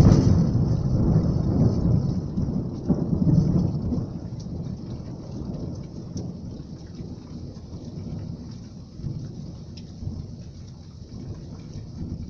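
Thunder rumbling loudly and dying away over the first few seconds, then steady heavy rain falling on the street.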